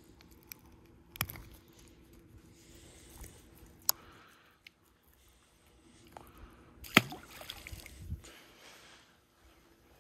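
Scattered clicks and rustles of a small speckled trout being unhooked by hand from a soft plastic lure, with a louder sharp thump about seven seconds in and crackly handling after it. A faint steady hum runs underneath.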